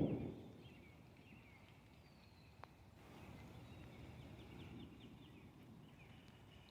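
The tail of a thunder rumble fades out in the first half second. Then faint birds chirp in quick repeated short calls over a low, distant rumble.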